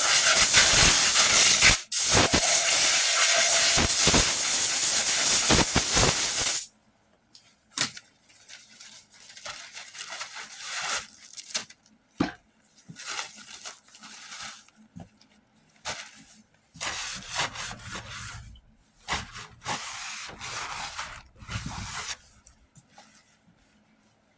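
Compressed air from an air-hose blow gun, blowing dust off sanded truck bodywork before priming. It gives a loud, steady hiss for about six and a half seconds, with a brief break near two seconds, then a string of shorter, quieter hissing bursts.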